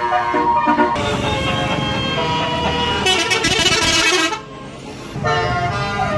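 Tour bus basuri horn playing a melody: several loud tones sounding together and changing pitch step by step, with a short break about four and a half seconds in before the horn sounds again.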